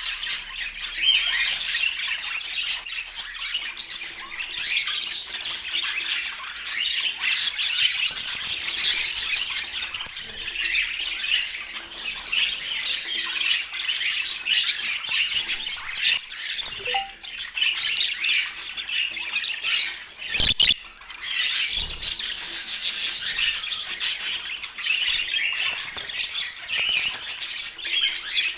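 Budgerigars chattering and warbling without pause, a dense run of chirps and squawks. A single sharp knock sounds about twenty seconds in.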